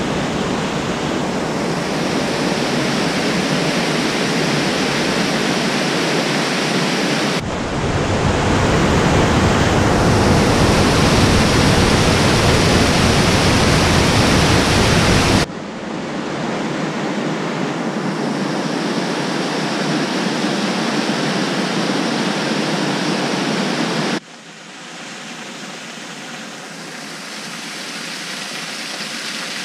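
Waterfalls pouring over rock ledges into pools: a steady rush of falling water. It changes abruptly in loudness three times, loudest and deepest from about 8 to 15 seconds in, and quieter for the last few seconds.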